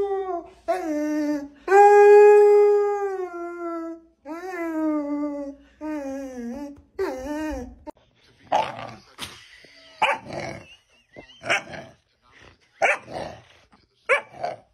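A dog howling in a run of long howls, each sliding down in pitch at its end. About eight seconds in it gives way to a different dog making a string of short, gruff barks, about one a second.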